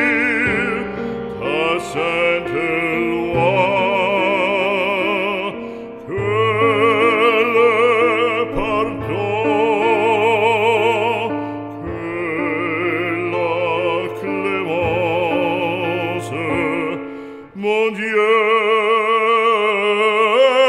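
Operatic classical music: a melody with wide vibrato over long held low notes, with a brief break about three-quarters of the way through.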